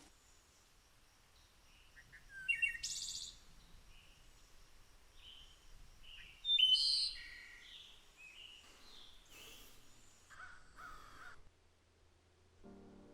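Wild birds calling and chirping in a series of short calls and whistles, the loudest at about three and seven seconds in. Soft piano music begins right at the end.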